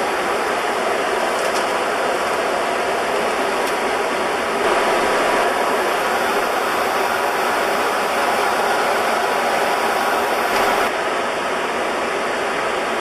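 Steady rushing cockpit noise of an Airbus A300-600R in flight, the hiss of airflow and air conditioning on the flight deck. It is slightly louder from about five seconds in until about eleven seconds in.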